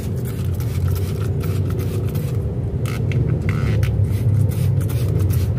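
A steady low rumble, like a motor or traffic, runs under a few short hisses about halfway through, as a hand sprayer mists eco-enzyme and water solution over rice bran.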